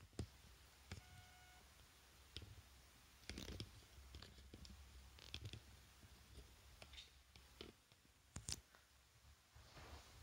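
Near silence with a few faint, scattered clicks and small taps.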